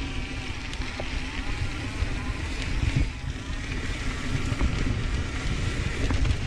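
Mountain bike rolling down a dirt trail: tyre and wind rumble on the microphone, with a few short knocks from the bike over bumps.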